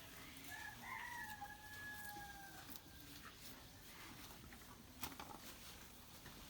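A rooster crowing once, faintly, starting about half a second in; the call is held for about two seconds and trails off slightly lower. A few sharp clicks come about five seconds in.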